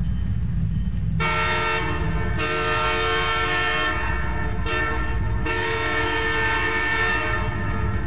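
A CPR diesel locomotive's chime air horn sounds a held chord over a steady low rumble. The horn comes in about a second in, breaks briefly twice, and stops near the end.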